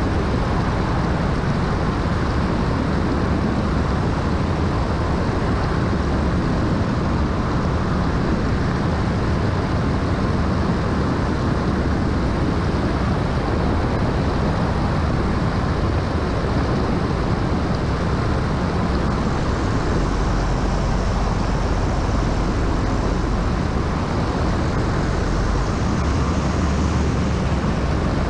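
Bautek Pico L ultralight trike in flight: the steady drone of its engine and pusher propeller under a loud rush of airflow over the microphone.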